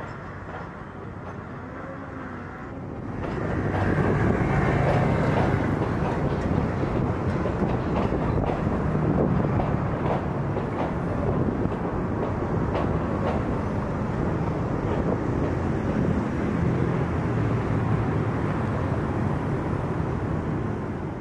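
Passenger train carriages rolling past, steel wheels rumbling and clattering over the track with irregular clicks and clanks. The sound grows markedly louder about three seconds in and stays loud.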